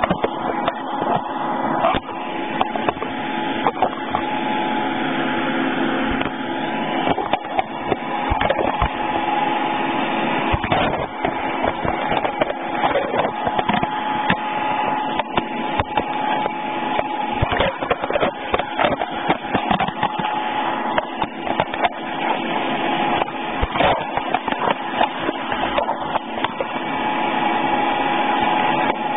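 CNC milling machine running with a steady mechanical hum and whine, with many short clicks and knocks scattered throughout.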